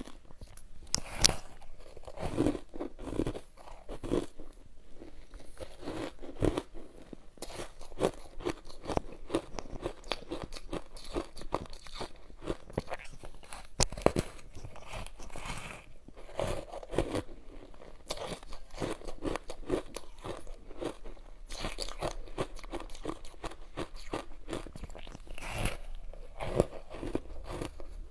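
Crunching bites and chewing of soft powdery ice coated in matcha green tea powder. There are many close crackly crunches, with several clusters of louder bites.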